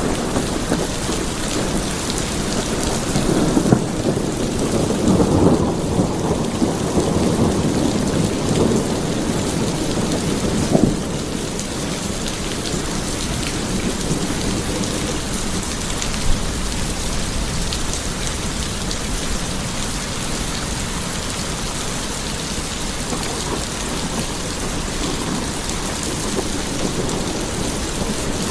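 Steady rain falling, with a low rumble of thunder that swells and fades over roughly the first ten seconds.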